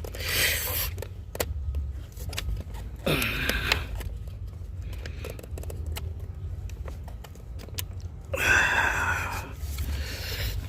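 Heavy breaths and a strained grunt of effort, three times, with small plastic clicks and scrapes as a stuck connector clip is pressed and worked by hand.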